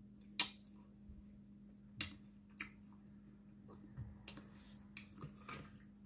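Faint crisp crunches and clicks of a frozen chocolate-coated ice pop being chewed, several separate sharp ones spread across a few seconds, over a low steady hum.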